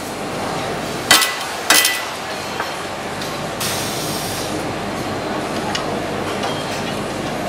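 Two sharp metal clanks about half a second apart as a golf iron is worked into the steel clamp of a loft and lie machine, a small click after them and a short hiss about three and a half seconds in, over the steady hum of factory machinery.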